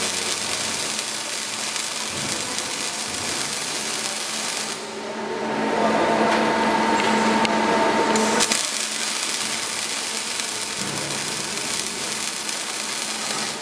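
Automatic arc welding of an LPG gas cylinder's bottom seam: the welding arc makes a steady hiss over a machine hum. The arc stops about five seconds in and strikes again a little past eight seconds.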